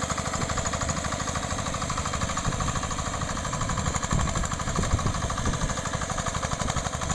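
Small engine of a homemade walk-behind power cultivator running steadily with a fast, even pulse while its tines churn hard, grassy ground. A few louder thumps come about four and five seconds in.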